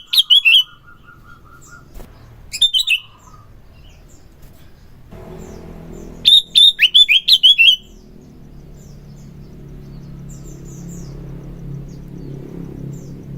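Sooty-headed bulbul (kutilang) singing in loud bursts of rapid chirping notes: three phrases, the longest about six seconds in. A low background hum builds through the second half.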